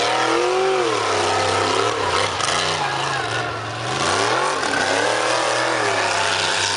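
Off-road race buggy's engine revving hard as it climbs a steep dirt track, its pitch swinging up and down several times as the throttle is worked.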